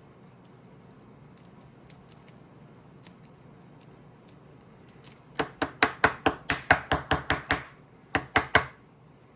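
Scissors snipping in a quick run of about a dozen cuts over two seconds, then three more, as if cutting open a card pack wrapper; faint clicks of card handling come before.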